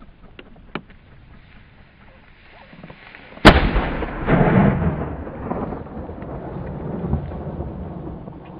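A single shotgun shot about three and a half seconds in, fired at partridges flushed in front of a pointing dog, followed by a long rumbling echo that fades slowly.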